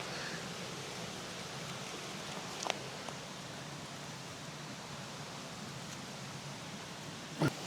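Steady rushing of a mountain creek. There is a faint click about two and a half seconds in and a short thump near the end.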